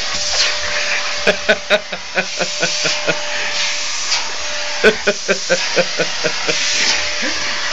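Henry cylinder vacuum cleaner running steadily with a constant whine. Over it come two bouts of giggling, about a second in and about five seconds in.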